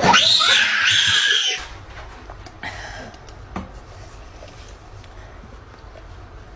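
A person screams loudly for about a second and a half, then quieter licking and lapping as a dog drinks from a plastic cup.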